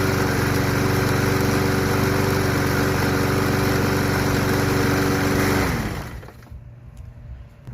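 Briggs & Stratton 190cc single-cylinder engine of a Yard Machine push mower running steadily at full speed, having just started after being revived with starting fluid. About six seconds in it shuts off and its pitch drops as it winds down.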